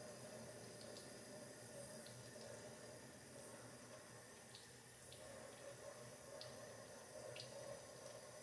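Faint, steady running tap water, with a few light ticks.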